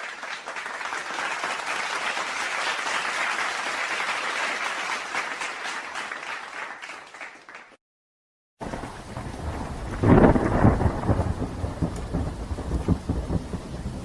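Two sound-effect clips, with about a second of silence between them. First a dense hiss that swells and then fades out over about eight seconds. Then a thunderstorm: rain with a loud, rumbling thunderclap about ten seconds in that rolls on and dies away.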